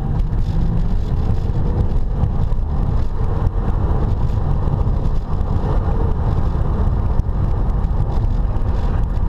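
Steady low rumble of road and engine noise inside the cabin of an Audi A5 Cabriolet being driven, with the roof closed.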